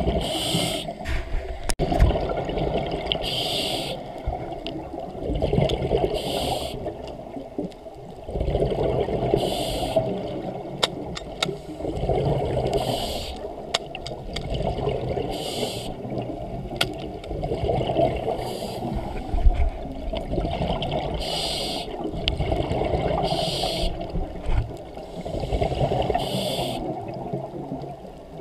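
Muffled underwater noise heard through a camera housing, with a short rushing hiss that comes back every two to three seconds and scattered sharp clicks.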